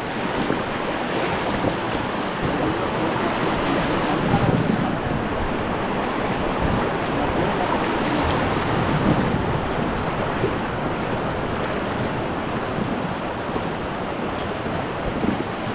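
River water rushing over rapids in a steady, unbroken roar, with wind buffeting the microphone.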